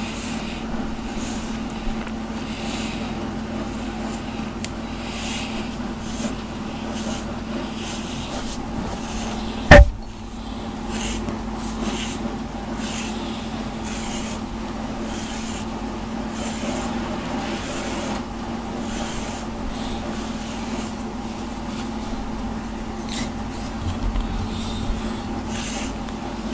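A grooming brush raking through a cat's fur in repeated soft scratchy strokes, about one a second, over a steady low hum. A single sharp knock about ten seconds in is the loudest sound.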